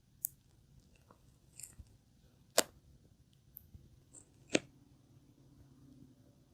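Pufferfish crunching snail shells: sharp cracks, two loud ones about two and a half and four and a half seconds in, with fainter clicks between.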